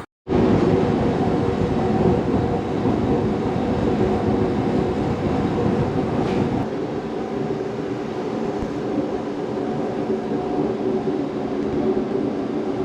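Gas-fired hydronic boiler running as it fires up on gas: a steady mechanical hum and rush that starts abruptly. The low rumble eases a little about halfway through.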